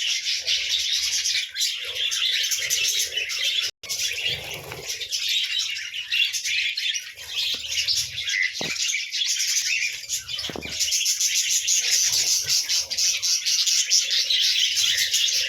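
A flock of budgerigars chattering and chirping together in a dense, continuous warble, their morning calls. The sound drops out for an instant a little under four seconds in.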